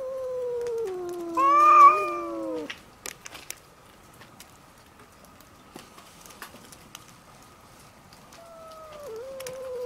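Stray calico and tortoiseshell cats yowling at each other in a fight standoff. A long low yowl slides down in pitch and is joined about a second and a half in by a louder, higher cry that rises and peaks; both break off a little under three seconds in. A new low yowl starts near the end.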